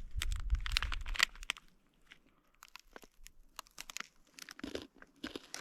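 Crinkling and crunching of gear and plastic packaging being handled while packing up. It is dense for about the first second and a half, then thins to scattered separate crackles.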